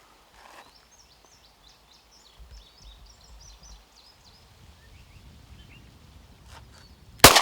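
Small birds chirping faintly over quiet outdoor background, then a single loud gunshot near the end, echoing away.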